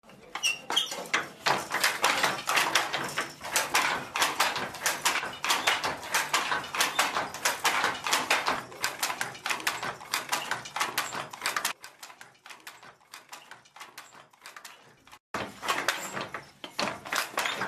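Wooden handloom clattering as it weaves: dense, irregular clicks and knocks several times a second. They grow quieter about two thirds of the way through, break off briefly, then return loudly.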